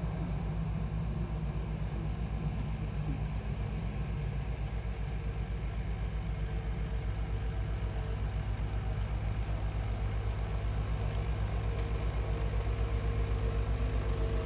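Ponsse forwarder's diesel engine running steadily as the loaded machine drives closer, growing slightly louder, with a faint steady whine coming in about halfway through.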